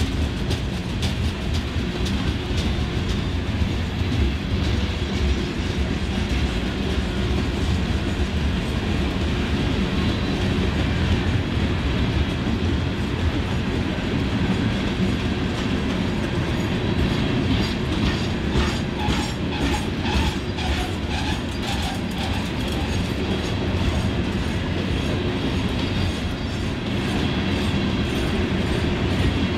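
Freight train of loaded ore hopper cars rolling past with a steady rumble, the wheels clicking over rail joints in the second half.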